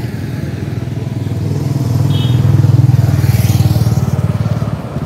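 Motorcycle engine running as it passes on the road, growing louder over a couple of seconds and fading again near the end.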